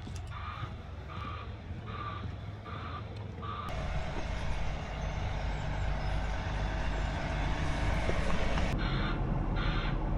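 Heavy diesel construction vehicle reversing, its back-up alarm beeping steadily about once every half-second over the engine's low rumble. The beeping breaks off for several seconds, leaving only the engine, and starts again near the end.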